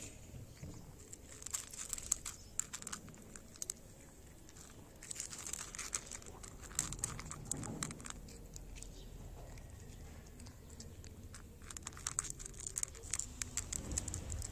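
A cat crunching dry kibble from a ceramic plate: rapid crisp crunches in three spells with short pauses between.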